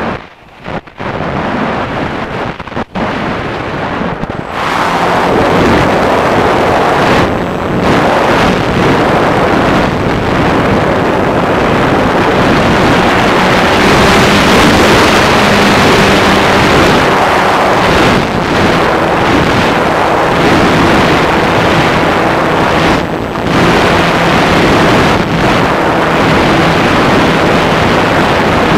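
Airflow rushing over the onboard camera's microphone on a Multiplex Solius RC plane in flight. It is choppy and broken for the first four seconds or so, then loud and steady.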